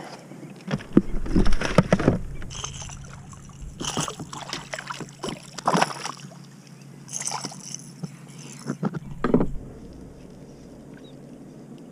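Water splashing and sloshing against a small plastic boat's hull in irregular bursts, with a few sharp knocks, as a hooked trout is lifted from the water beside the boat.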